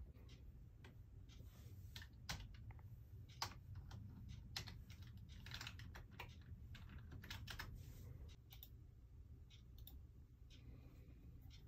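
Faint typing on a computer keyboard: irregular key clicks, a few louder than the rest, over a low steady hum.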